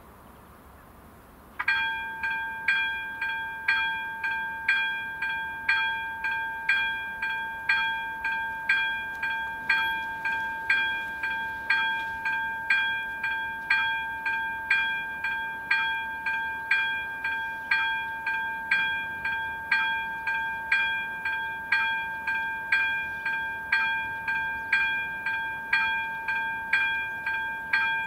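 Electronic warning bell of a Czech level crossing's AŽD 71 warning signal starting up about a second and a half in, then ringing with a steady repeated ding over a held tone. The crossing has been activated: a train is approaching.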